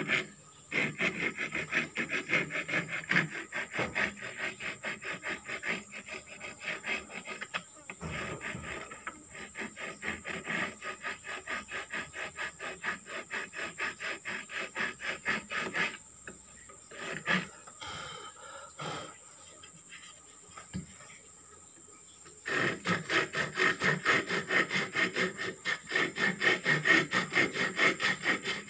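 Hand file rasping along the edge of a wooden block in quick back-and-forth strokes, about three a second. The strokes pause for several seconds, leaving a few scattered knocks, then resume louder near the end.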